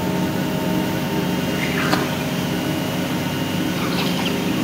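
Plastic pelletizing extruder line running: a steady machine hum with a constant high tone over it, and a single sharp click about two seconds in.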